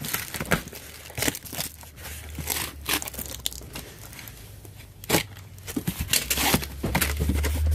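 Clear plastic packing tape on a cardboard carton being cut with a box cutter and torn, and the cardboard flaps pulled open: an irregular run of crackles, rips and scrapes.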